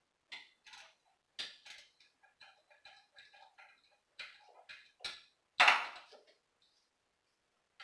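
Socket wrench ratcheting in short strokes on engine bolts, a run of quick metallic clicks with the odd clink of tool on metal, and one louder clank about five and a half seconds in.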